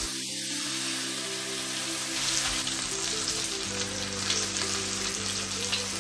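Fish steaks frying in oil in a frying pan, a steady sizzle, while a spatula is worked among the pieces in the pan.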